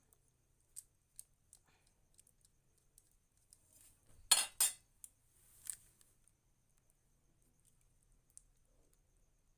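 Utensils clinking against a dish: a few light ticks, then two sharp clinks close together about four seconds in and one more a second later.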